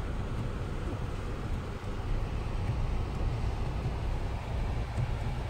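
Jeep Wrangler JK driving on a snowy road, heard from inside the cabin: a steady low rumble of engine and road noise.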